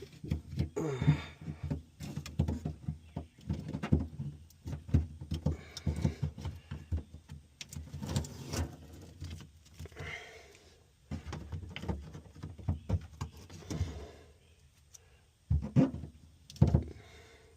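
Factory sound deadening mat being pried and peeled off a car's sheet-metal floor pan: irregular scraping, crackling and knocks against the metal, with two louder knocks near the end.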